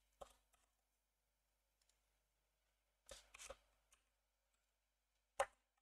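A few sparse computer keyboard keystrokes: single key clicks, a quick pair about three seconds in, and a louder click near the end, between stretches of near silence.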